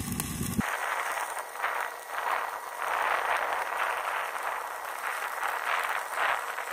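Stick-welding arc crackling and hissing steadily as a 3/32-inch rod burns in an uphill pass on a pipe joint, swelling and fading a couple of times a second. A low rumble cuts off suddenly about half a second in.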